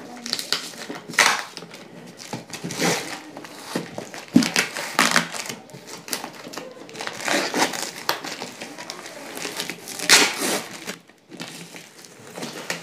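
Packing tape being ripped off a cardboard shipping box, in several irregular tearing pulls with cardboard rustling and crinkling between them.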